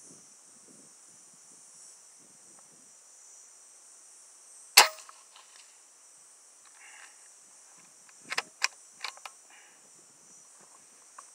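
A Hatsan Flash Pup .22 pre-charged pneumatic air rifle fires a single sharp shot a little under five seconds in. About three and a half seconds later comes a quick cluster of smaller sharp clicks as the rifle is handled. A steady high insect buzz runs underneath throughout.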